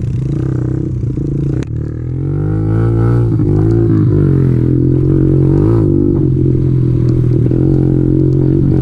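Kawasaki KLX110 pit bike's single-cylinder four-stroke engine running under way on a dirt trail, heard from the saddle. A knock about a second and a half in, then the revs climb and rise and fall with the throttle.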